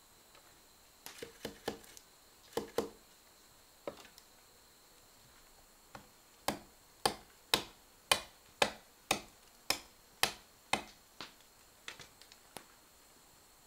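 Large knife chopping on a wooden log: a few scattered sharp knocks, then about nine even chops, roughly two a second, from about halfway, trailing off into lighter taps.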